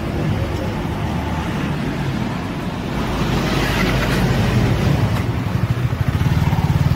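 Yamaha MT-15's 155 cc single-cylinder engine idling, getting louder and beating in a regular pulse over the last second.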